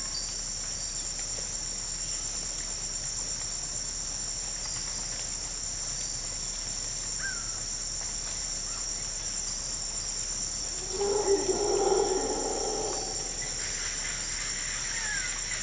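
Steady high-pitched chorus of insects singing, with a few faint short bird chirps. About eleven seconds in, a louder pitched sound rises over it for a couple of seconds.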